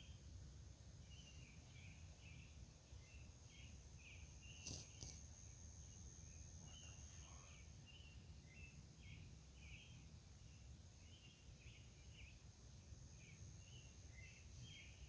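Faint outdoor night ambience: short chirps repeating irregularly over a steady high-pitched drone, with a low rumble underneath and a single click about five seconds in.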